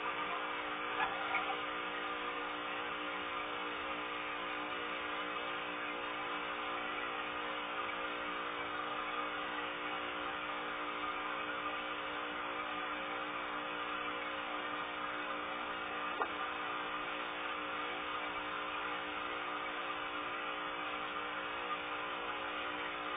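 Steady hum and hiss of running aquarium filter equipment, with one faint click past the middle.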